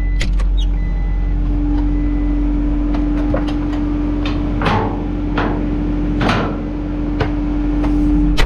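Farm loader's engine running steadily with a constant hum, and scattered metallic knocks and rattles from the machine and bucket.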